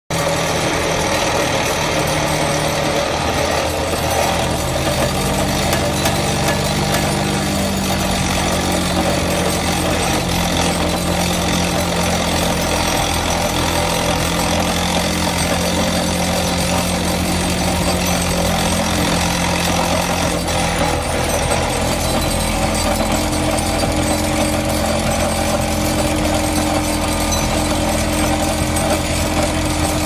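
Excavator-mounted vibratory pile hammer running continuously, a loud, steady rapid rattle as it vibrates a pile into the soil. Under it is a low engine and hydraulic hum that shifts in pitch a few times.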